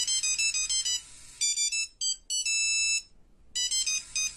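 High-pitched electronic melody of quick, short beeping notes, like a phone ringtone, with a held chord about two and a half seconds in and a brief break just after it.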